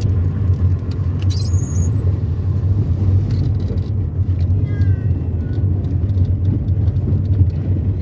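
A car driving on a rough dirt road, heard from inside the cabin: a steady low rumble of engine and tyres on the unpaved surface, with scattered small knocks and rattles.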